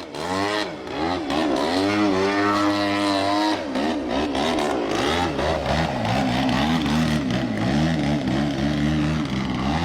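Engine of a giant-scale radio-controlled airplane flying aerobatics, its pitch swooping up and down again and again as the throttle and the plane's passes change.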